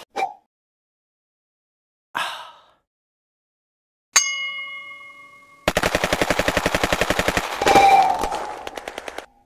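Dubbed sound effects: a short blip, a brief noisy swish, then a bell-like ding that rings out and fades, followed by a rapid, even rattle of sharp clicks like machine-gun fire lasting a few seconds.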